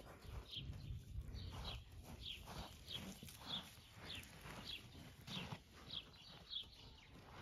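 A bird calls over and over, faintly, with short chirps that fall in pitch, about one every half to two-thirds of a second. Under it is a soft rustle of dry soil being pushed over seed holes by hand.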